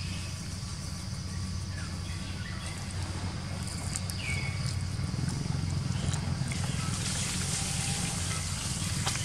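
Outdoor background noise: a steady low hum with a hiss that swells about seven seconds in. A short high chirp comes near the middle, and a few faint clicks are heard.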